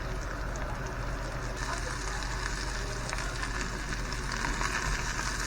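Cracker-meal-coated morel mushrooms frying in butter and olive oil in a cast iron skillet: a steady sizzling hiss full of small crackles, which turns brighter about a second and a half in.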